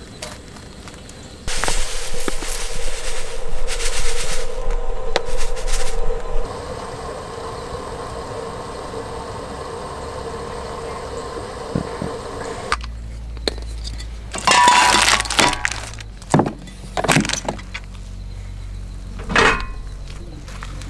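A few seconds of loud hissing, then a quieter steady noise. After an abrupt change, a run of sharp clinks and knocks of kitchen gear being handled on the van's camp counter.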